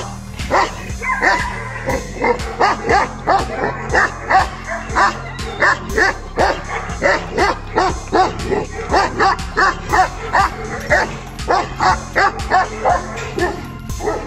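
Tibetan mastiff barking repeatedly and aggressively, about two barks a second without a break, over steady background music.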